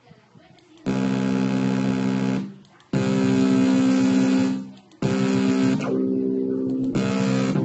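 Sustained electronic keyboard chords played back from Ableton Live, struck four times. Each chord starts abruptly and holds for about one and a half to two seconds, with short gaps between the first three.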